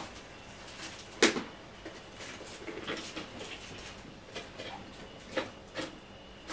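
A cat tussling with a feather wand toy at the foot of a sisal scratching post: scattered soft knocks, scuffs and rustles, with one sharp knock about a second in.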